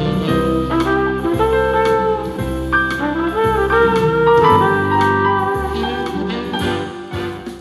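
Live jazz combo playing: a brass horn carries the melody over keyboard chords and conga drums, fading near the end.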